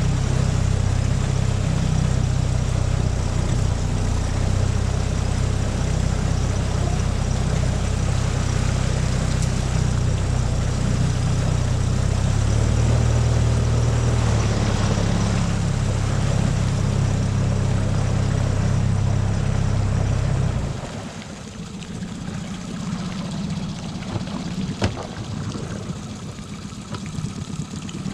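Small tiller-steered outboard motor running steadily under way on a duck boat. About three-quarters of the way through it drops off to a much quieter low idle.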